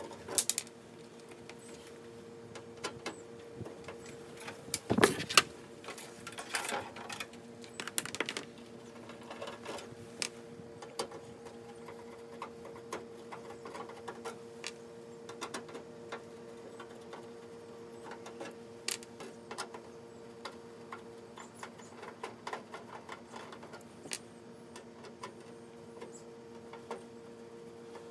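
Screws being taken out of a rice-milling machine's sheet-metal panel: scattered clicks and knocks of a screwdriver and metal being handled, the loudest about five seconds in, over a steady low hum.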